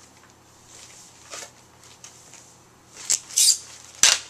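Rustling of the white protective wrapping being pulled off a Blu-ray player, faint at first, then loud sharp rustles about three seconds in and again near the end.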